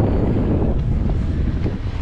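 Wind buffeting the microphone on a moving mountain bike, a dense steady low rumble with a few faint knocks mixed in.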